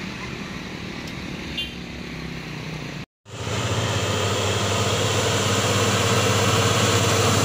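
Light traffic passing, a scooter going by close. After an abrupt cut, a fuel tanker truck's diesel engine labours up a steep grade: a steady low drone that slowly grows louder as it approaches.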